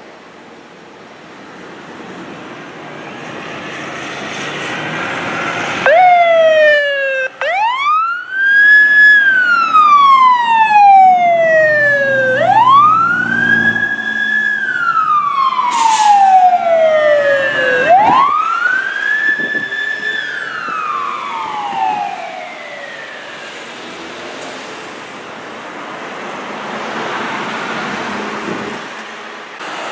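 Fire engine's siren wailing as the truck passes, under the truck's engine and road noise: it rises quickly three times to a held high pitch and each time sinks slowly back down. A short, shrill burst comes just past halfway.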